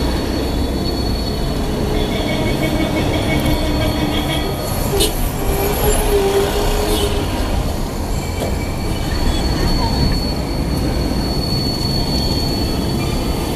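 City road traffic heard from inside a car: engines running, with short car horn sounds in the middle and a thin, steady high-pitched whine.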